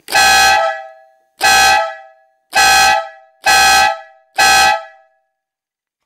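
A 12-volt triple-tone air horn, three red trumpets fed by an electric compressor, sounds five short blasts of a steady three-note chord around 600–810 Hz. Each blast lasts about half a second and trails off briefly; the blasts come closer together after the second one.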